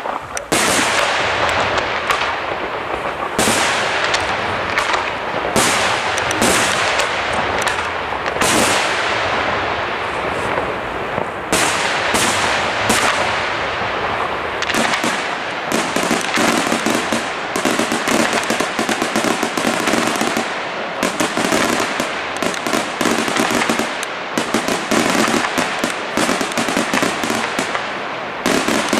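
Aerial fireworks display: shells bursting one after another with booms that trail off. From about halfway on, dense rapid crackling fills in between the bursts.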